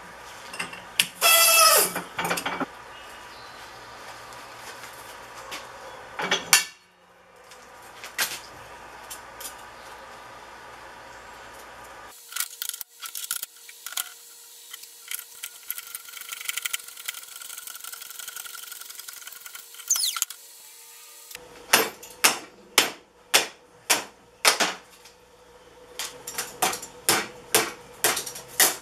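Hydraulic shop press squeezing a scrap metal part: a loud falling squeal of metal under load about a second in, then a sharp crack about six seconds in as the part gives. In the last seven seconds, a run of sharp metal-on-metal strikes on a part clamped in a bench vise.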